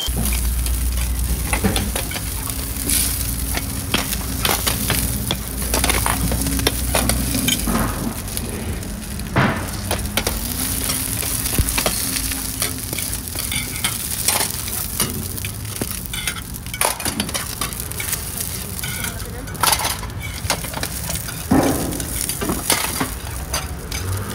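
Hotteok frying in oil on a flat steel griddle, a steady sizzle, with sharp clinks every few seconds as stainless steel dome lids and a hand press are set on and lifted off the griddle.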